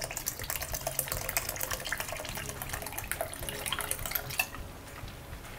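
Water pouring in a thin stream into a pan of thick dal makhani, splashing steadily into the lentil curry.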